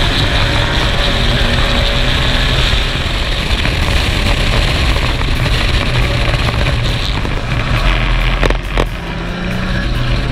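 Vintage sports racing car's engine running hard under acceleration from a rolling race start, heard from inside the open cockpit, with other racing cars' engines close by. The sound dips briefly about nine seconds in.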